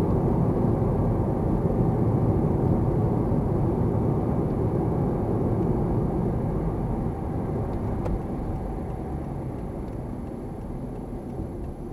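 Road noise of a moving car heard inside the cabin: a steady low rumble of tyres and engine, getting quieter over the last few seconds.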